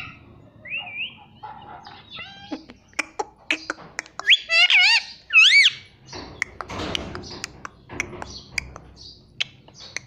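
Indian ringneck parakeet giving a run of chirps, clicks and short whistles, with two loud warbling whistles about halfway through, followed by a brief harsh squawk and more chirps.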